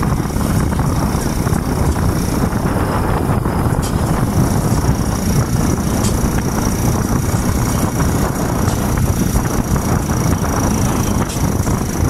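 Wind buffeting the microphone over the steady rumble of a vehicle driving along a road, with a faint steady high whine above it.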